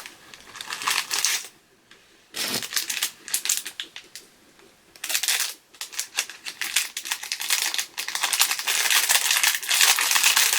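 Packaging being handled and unwrapped: rustling and crinkling in bursts with brief pauses, turning into a near-continuous crackle for the last few seconds.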